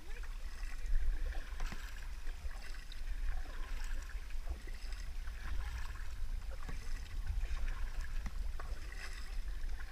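Kayak paddle strokes dipping and splashing in the water beside the hull, with wind rumbling on the microphone.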